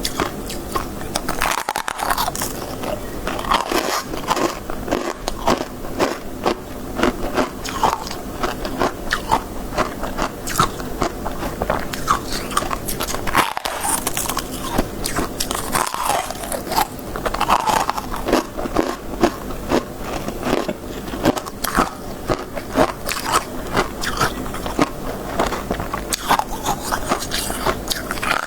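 Close-up crunching and chewing of crisp freezer frost: continuous crackly bites into packed frost ice, many sharp crackles overlapping.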